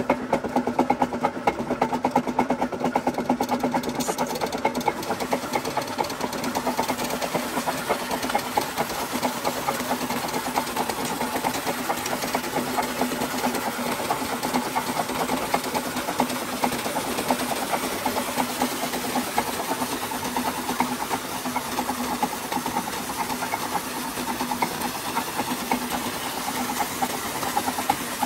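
Electric surface water pump and belt-driven alternator rig running with a steady mechanical hum, joined a few seconds in by the rush of water gushing from the pump's outlet pipe.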